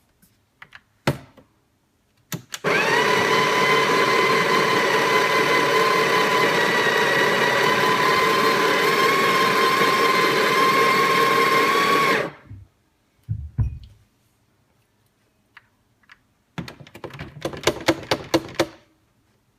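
The built-in conical burr grinder of a Breville Barista Express espresso machine running for about ten seconds, a loud steady motor whine, then cutting off. A couple of low thumps and a quick run of clicks and knocks follow.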